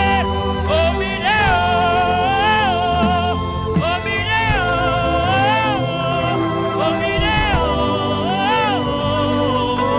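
Live worship music: held keyboard chords and a bass line, with a voice singing a gliding, wavering melody over them without clear words.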